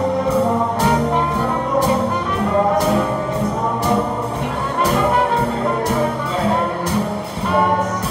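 Live jazz band playing an instrumental passage with guitar and double bass, a horn-like lead carrying the melody over a beat that falls about once a second.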